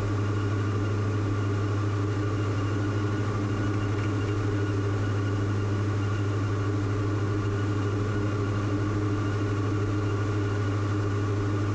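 Diamond DA42 twin's two Austro AE300 turbodiesel engines and propellers droning steadily, heard inside the cockpit: an even, unchanging low hum with a strong deep tone.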